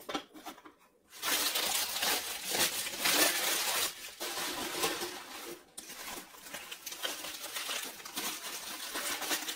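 Rustling and clinking as a packet of small baked-clay pieces is handled and opened, starting about a second in: a dense run of small clicks and crinkling with two brief pauses.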